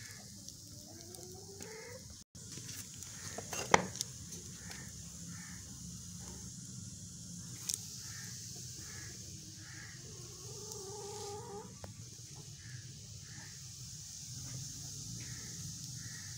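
Chickens clucking over and over in short calls, with a longer drawn-out call about ten seconds in. A sharp knock sounds a few seconds in, and a steady faint hiss runs underneath.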